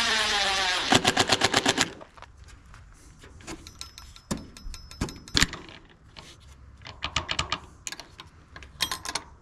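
Power drill driving a screw, its motor note sliding down as the screw seats, then about a second of rapid clicking at roughly eight clicks a second. Scattered clicks and knocks of small hardware being handled follow.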